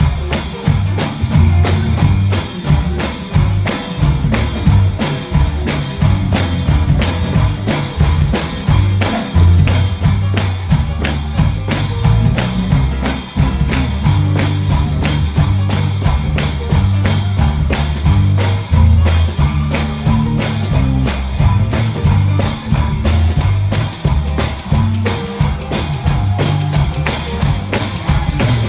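Live church band playing an instrumental stretch of an up-tempo gospel song: a drum kit keeps a fast, steady beat of about three hits a second under a heavy bass line, with guitar.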